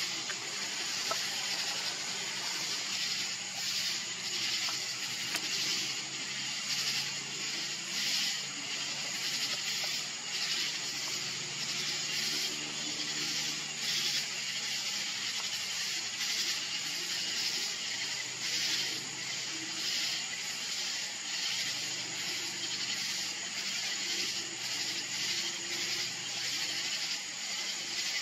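Steady high hiss that swells and fades irregularly about once a second, with a faint low hum underneath.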